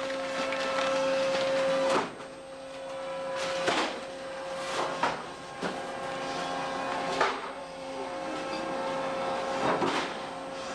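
Machinery aboard a fishing boat running with a steady hum, with irregular metallic clanks and knocks, the loudest about two seconds in.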